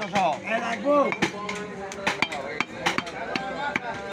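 Meat cleaver chopping through beef onto a thick wooden log chopping block: a run of sharp, unevenly spaced chops, with voices talking alongside.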